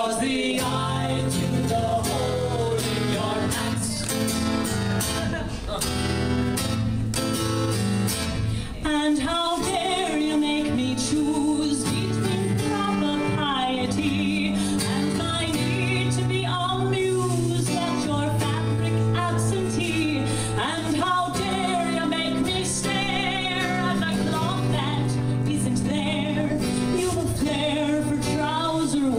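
Live song with a woman singing over a strummed acoustic guitar.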